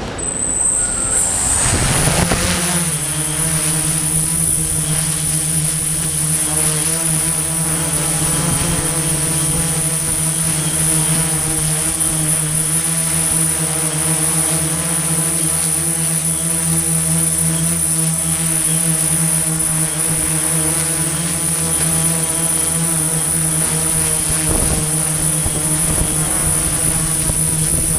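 Construction machinery engine coming up to speed and then running steadily at constant revs: a steady, low pitched drone with a thin high whine above it.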